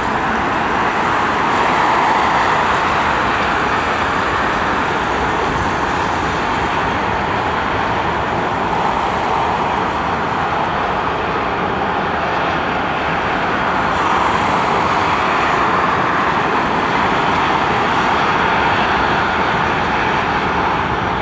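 Airbus A318 jet engines running at taxi thrust as the airliner rolls by: a steady rushing noise that swells a little now and then.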